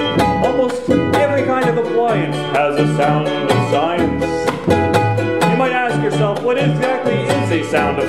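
A band playing: plucked string instruments over a bass line, with a steady beat.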